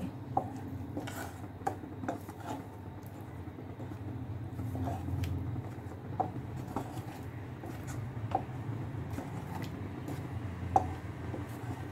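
Spoon stirring thick milk and rice phirni mixture in a nonstick saucepan to mix in the sugar, with scattered light scrapes and clicks against the pan over a steady low hum.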